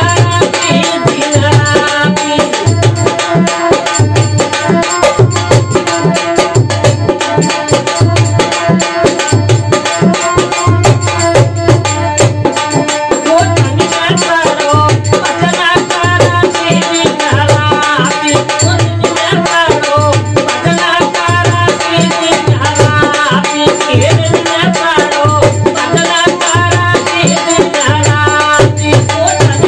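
Rajasthani devotional bhajan music: a dholak drum keeps a steady beat, its deep strokes coming about once a second, under harmonium.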